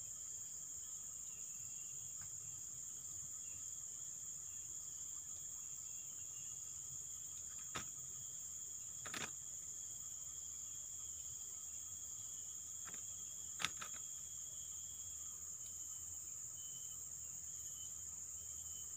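Steady high-pitched drone of insects in the forest undergrowth, with a few light clicks about halfway through and again later.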